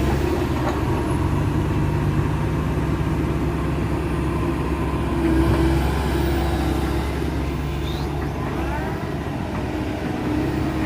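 Heavy diesel engine running steadily under load, swelling briefly a little past halfway.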